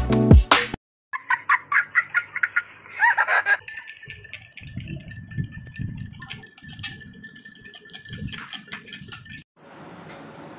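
Steel spoon stirring lemon water in a glass tumbler, clinking against the glass about four times a second, then stirring more softly with a faint steady ringing from the glass.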